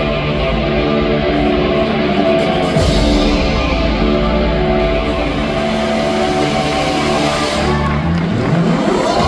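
Loud show music made of steady held notes. Near the end a sweep rises in pitch.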